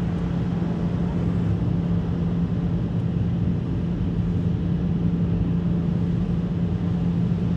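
Car ferry's engines running with a steady low drone and hum as the ferry comes in to the quay, heard from inside a vehicle on the car deck.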